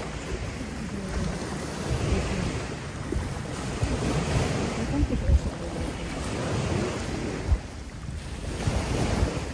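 Small waves washing onto a rocky, sandy shore, the wash swelling and easing, with wind buffeting the microphone in a few sudden low thumps.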